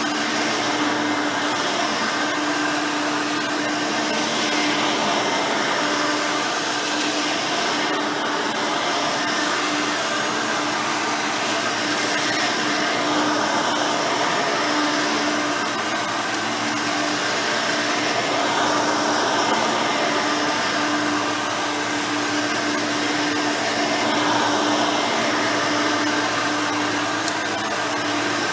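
Hoover Elite 5.0 upright vacuum cleaner running steadily on carpet, its original 5-amp motor with a replacement 7-blade fan giving a constant hum over the rush of air.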